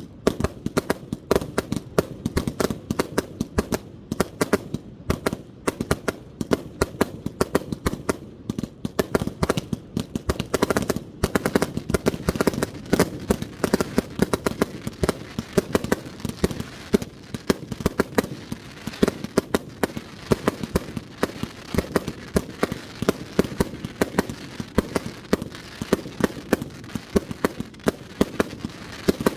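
1.3G display fireworks fired from multi-shot racks: a dense, continuous barrage of sharp reports, many a second, as shells launch and burst.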